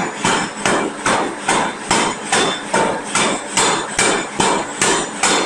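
Forging hammer striking the workpiece in a steady run of rapid blows, about two and a half a second, each a sharp ringing clang.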